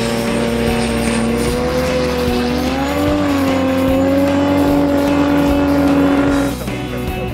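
Racing jet boat engine running hard at high revs, a steady strong note that climbs a little in pitch a couple of seconds in, then cuts off suddenly near the end.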